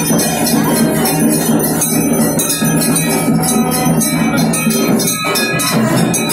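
Bells ringing rapidly and without a break in puja worship, a dense metallic jangle over steady lower ringing tones.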